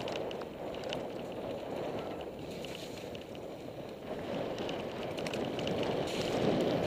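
Mountain bike descending a loose gravel singletrack: tyres crunching over stones and the bike rattling in quick small clicks, over a steady rush that swells over the last couple of seconds.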